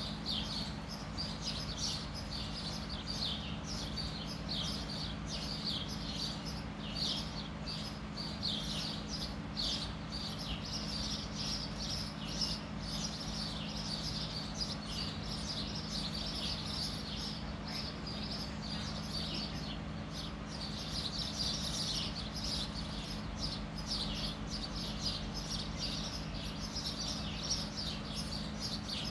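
Many small birds chirping continuously in a dense, overlapping chatter, over a steady low hum.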